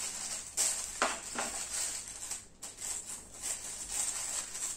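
Plastic courier parcel bag crinkling and rustling as it is handled and cut open with scissors, with a few sharp clicks in the first second and a half.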